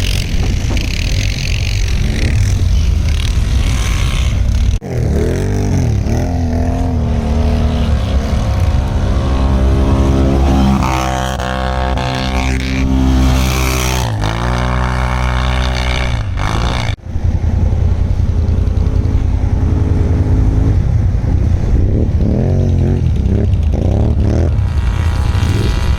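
ATV engines running and revving up and down as the quads are driven through snow. The sound breaks off sharply about five seconds in and again about seventeen seconds in.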